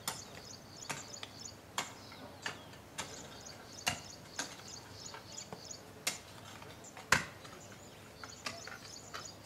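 Chopping: sharp, irregular knocks of a tool striking, one every half second to a second, the loudest about seven seconds in, over faint bird chirping.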